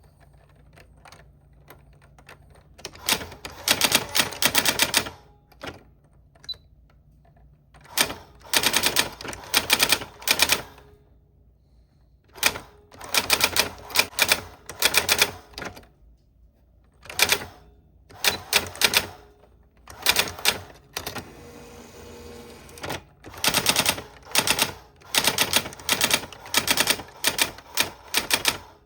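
Old typewriter being typed on: quick runs of sharp keystrokes clacking, separated by short pauses.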